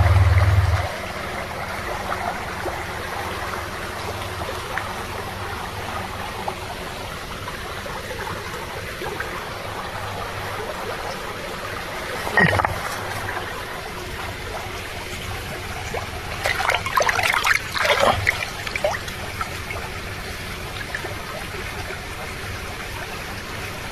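River water flowing steadily over a stony bed. A short knock comes about halfway through, and a few seconds of louder, irregular noise follow a little later.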